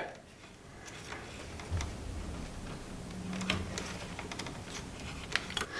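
Faint plastic clicks and light scraping as a white multi-pin wiring-harness connector is pushed and worked onto a boiler PCB test card.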